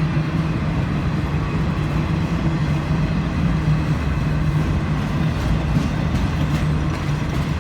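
CSX freight train passing: a steady, loud rumble of cars rolling on the rails, with a low, steady hum underneath.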